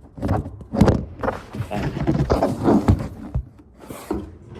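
Handling noise from unpacking a heavy automotive AC compressor from its cardboard box: irregular knocks, bumps and rustling of cardboard and packing material.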